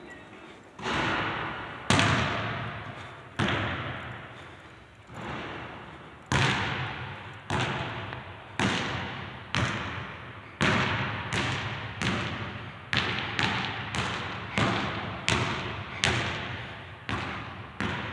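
A basketball bounced on a gym floor, each bounce ringing out in the big empty hall. About one bounce a second at first, quickening to nearly two a second in the second half.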